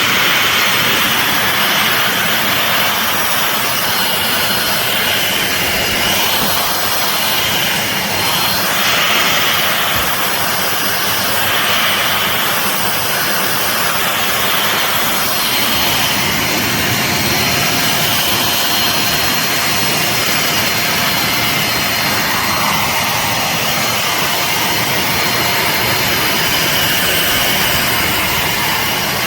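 Belaco Dual 700 W corded upright vacuum cleaner running steadily, its motor noise holding level with a faint high whine.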